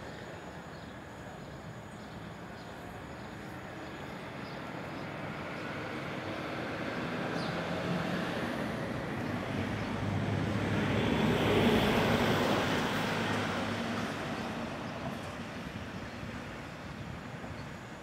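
A motor vehicle passing by: its engine hum and road noise grow gradually louder, peak about twelve seconds in, then fade away.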